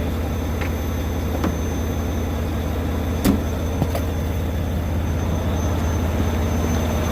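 Semi-truck diesel engine idling with a steady low drone. A few sharp knocks come through, the loudest about three seconds in.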